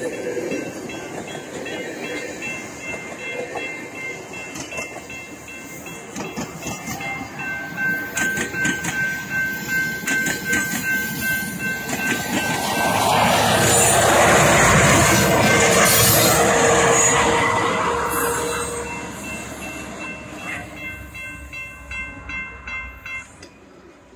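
GO Transit bilevel passenger coaches rolling past, with wheels clattering over the rail joints and steady high ringing tones over the top. A louder rushing swell comes about halfway through as a second train passes on the near track, and the noise then dies away.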